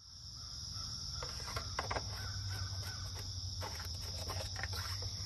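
Steady high-pitched chorus of insects such as crickets, with short clicks and rustles from hands working around a mower engine about a second in and again near four seconds.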